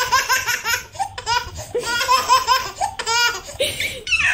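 Baby laughing hard in repeated bouts of rapid, high-pitched laugh pulses, with short breaths between bouts.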